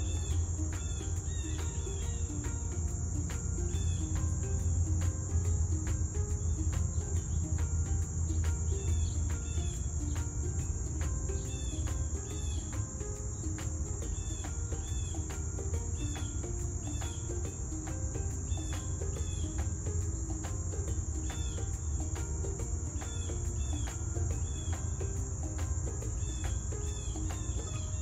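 Insects droning in one steady, unbroken high tone, with short, hooked bird chirps coming in small clusters every second or two above a low background rumble.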